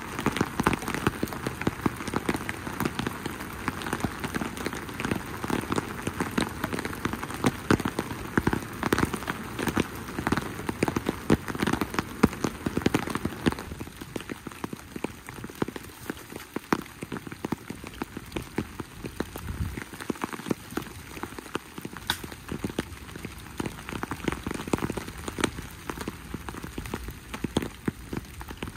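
Steady rain falling, with many close, sharp drop hits pattering throughout; it gets a little quieter about halfway through.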